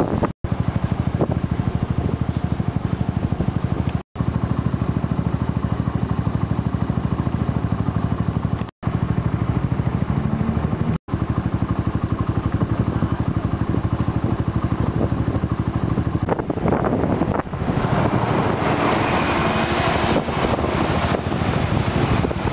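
Small two-stroke chainsaw engine running steadily, cutting out briefly four times. In the last few seconds a rougher, gusty noise joins it.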